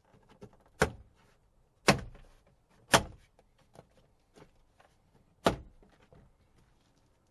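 Four sharp knocks with fainter clicks between, from hands and tools working on a car's interior door trim panel.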